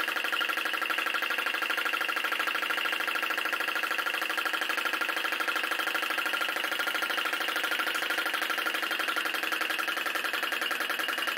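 Small flame licker (flame gulper) vacuum engine running steadily at speed and belt-driving a small generator: a steady buzzing drone of very rapid, even pulses.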